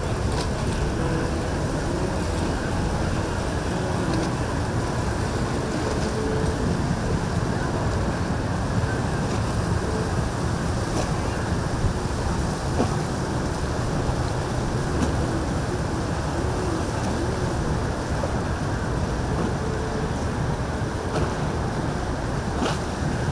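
Steady rumbling wash of a boat under way: engine noise mixed with rushing water and wind, with no sudden events.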